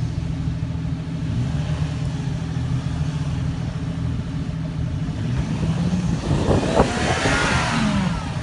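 Four-wheel-drive vehicle's engine revving hard on a sand-dune climb, its note rising and falling, with a louder surge and rush of noise about six seconds in.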